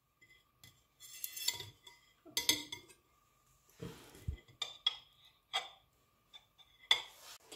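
A metal knife and fork clinking and knocking on a ceramic plate: a series of separate light clinks, some with a brief ring, and a duller thump about four seconds in.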